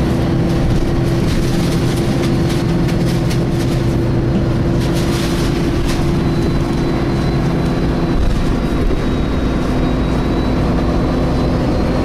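MAN A22 bus (Wright Meridian body) heard from inside, its engine running with the cooling fan 'hoovering', a steady drone. A thin high whine joins about halfway through.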